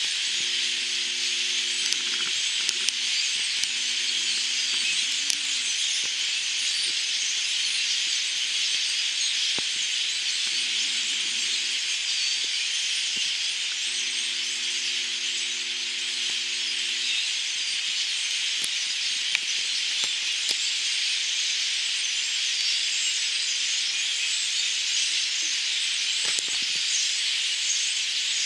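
A huge flock of migrating birds calling all at once, blending into a dense, steady wall of high chatter.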